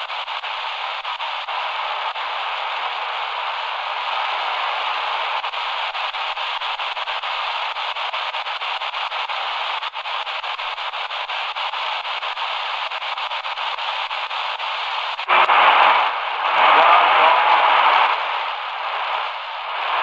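Shortwave static hissing from the small speaker of an XHDATA D-328 portable radio as its dial is tuned across the shortwave band. About fifteen seconds in, a louder, fuller station signal comes through in uneven stretches.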